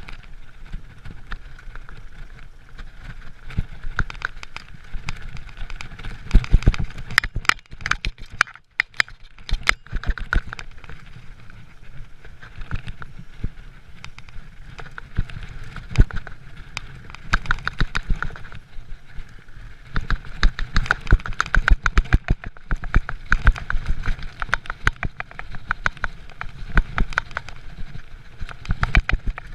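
Giant mountain bike riding fast down a dirt forest trail: tyres rumbling on the dirt, with dense, irregular rattling and knocking from the bike over roots and bumps. There is a brief lull about nine seconds in.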